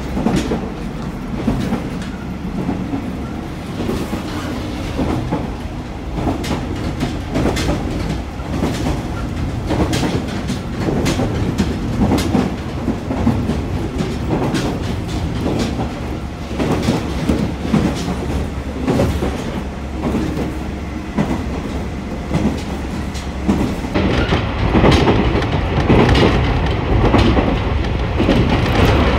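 Running noise of a diesel railcar heard from inside the carriage: a steady low rumble with the wheels clacking over rail joints. It grows louder over the last few seconds.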